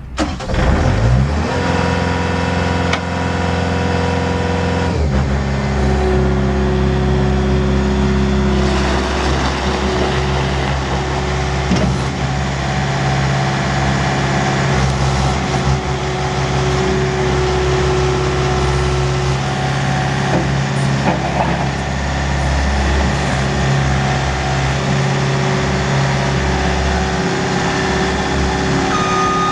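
Bobcat S185 skid steer's diesel engine starting, with a rising pitch as it catches, then running steadily. About five seconds in the engine note changes and settles into a new steady run.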